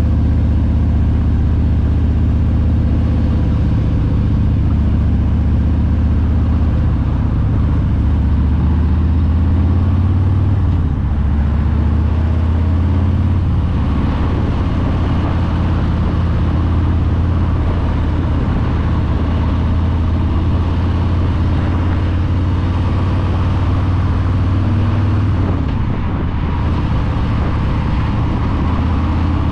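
2021 Harley-Davidson Breakout's Milwaukee-Eight 114 V-twin running under way, a deep steady engine note heard from the rider's seat. The note dips and shifts pitch about a third of the way in and again near the end, over a steady rushing noise.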